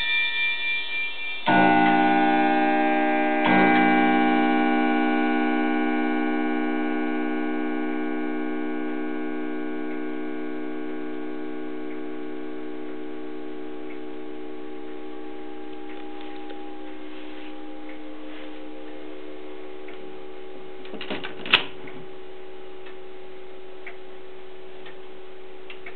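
Grandfather (longcase) clock chiming on its bells: a few chime notes, then two strong bell strikes about a second and a half and three and a half seconds in, which ring on and die away slowly over many seconds. The clock ticks throughout, and a single sharp click sounds a little past twenty seconds in.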